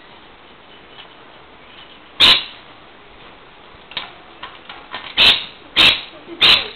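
A rainbow lorikeet at play in its cage with a plastic ball toy. There is one loud sharp sound about two seconds in, then a few lighter clicks, then three more loud sharp sounds close together near the end.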